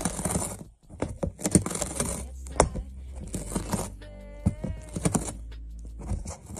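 A gray cat biting and gnawing at the edge of a surface: irregular clicking and crackling with rustling. A short pitched vocal sound comes about four seconds in.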